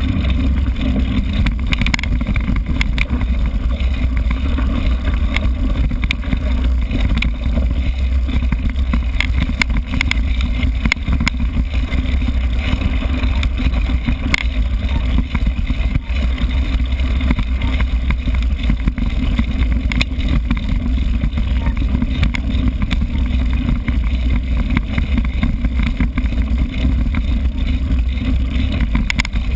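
Steady low rumble of wind buffeting and tyres rolling on a rough grassy dirt track, picked up by a bike-mounted GoPro camera on a moving mountain bike, with frequent small rattles and knocks from the bike over bumps.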